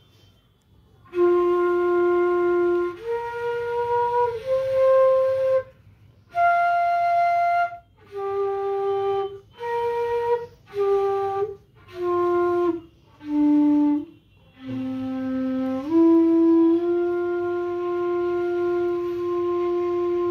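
F bass bansuri of fried bamboo being played: a slow melody of sustained notes broken by short pauses for breath, starting about a second in and ending on one long held note.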